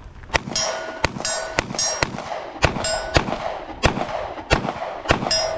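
Handgun fired in a rapid timed string, about a dozen shots in quick succession, with hits ringing the steel targets.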